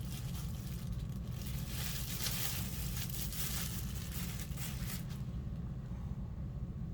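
Packaging rustling, crinkling and tearing as a subwoofer is unwrapped, busiest in the middle and stopping about five seconds in, over a steady low hum.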